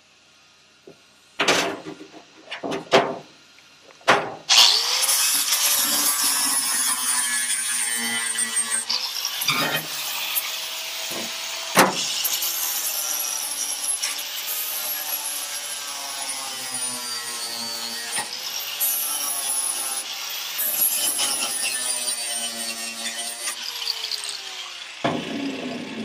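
Angle grinder with a flap disc grinding fresh welds on a sheet-steel body seam. After a few short bursts, it runs continuously for about twenty seconds. The motor's pitch sags and recovers again and again as the disc is pressed onto the metal and eased off, and it stops near the end.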